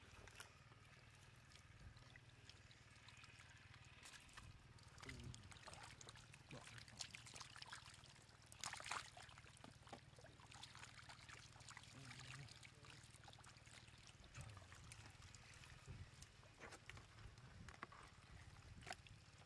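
Faint, scattered splashing and slapping of fish wriggling in a shallow muddy puddle as they are scooped up by hand with a plastic basket, loudest about nine seconds in, over a low steady hum.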